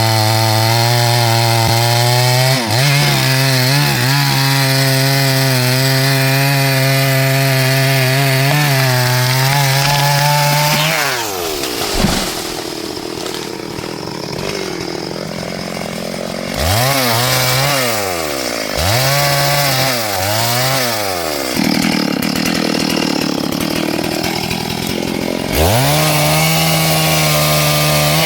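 Small chainsaw engine held at full throttle for about ten seconds while cutting wood, then dropping to idle. Three short throttle blips follow, and it revs up to full again near the end before letting off.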